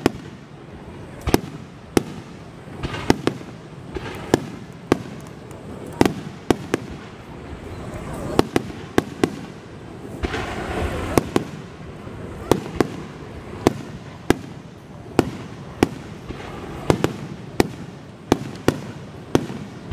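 Aerial fireworks shells bursting, a long irregular string of sharp bangs at roughly one or two a second, some coming in quick pairs.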